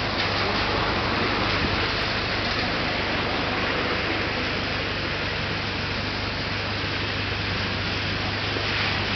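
Steady rain falling on a wet street, with a constant low hum underneath.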